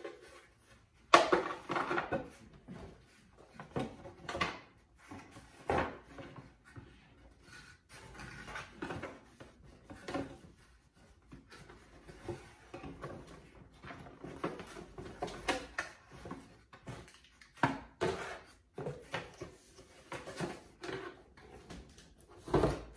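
Cardboard shoe boxes and paper being handled: irregular rustling, scraping and knocks as things are packed into a box and the boxes are moved, with a sharp knock about a second in.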